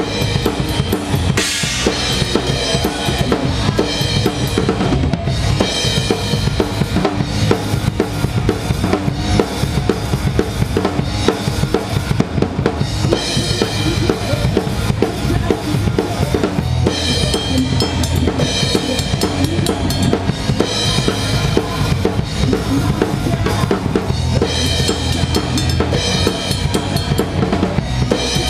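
Rock band playing live, with the drum kit loudest in the mix: a steady beat on bass drum and snare with cymbals over the band.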